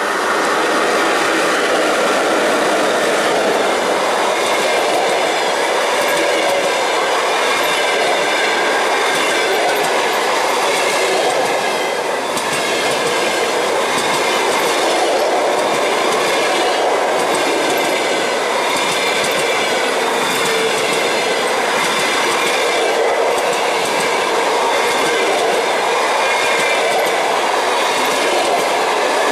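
A passenger train passing close by: a ChS7 electric locomotive goes by at the start, then a long string of coaches. The wheels clack over the rail joints in a loud, steady rush, with a thin high ringing tone above it.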